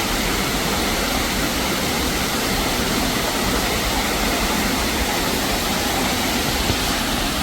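Waterfall: a steady rush of water falling and splashing close by, even and unbroken.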